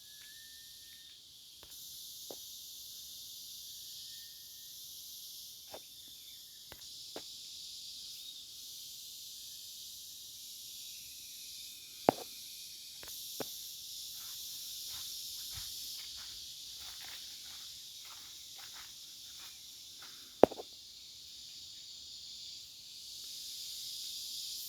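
Steady high-pitched insect chorus, with scattered sharp clicks and crackles and a few louder snaps.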